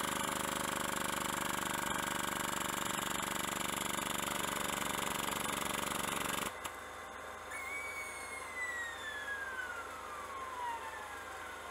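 Motor-driven shop machinery running with a steady, strongly pitched drone, cutting off abruptly about six and a half seconds in. A fainter whine then falls steadily in pitch over the last four seconds.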